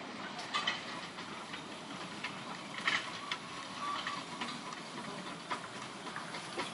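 1918 Kerr Stewart narrow-gauge steam tank locomotive approaching slowly with its coaches, heard faintly: a soft steady steam hiss with scattered light clicks from the wheels and track.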